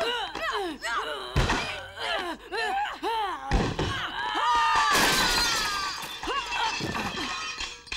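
Two women grunting and crying out as they fight, with heavy punch thuds about 1.5 and 3.5 seconds in. About five seconds in comes a long, loud crash as a body smashes through a window, with shattering and a drawn-out cry.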